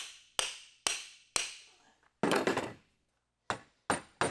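Sharp hammer blows on a wooden mallet's head-and-handle joint, driving the joint together to close a gap: four strikes about half a second apart, a brief rougher clatter just after two seconds in, then three more strikes near the end.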